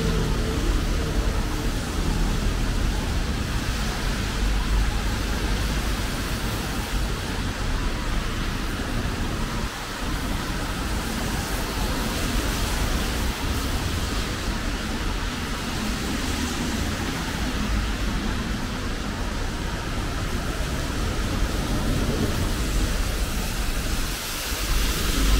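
Steady city-street ambience in rain: an even hiss of rain and wet road with the low rumble of passing traffic, growing louder right at the end as a vehicle comes near.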